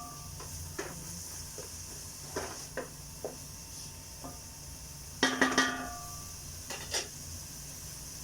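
A metal spoon stirring in a cooking pot: scattered knocks and clinks against the pot, each ringing briefly, with a louder cluster of knocks about five seconds in, over a steady low hum.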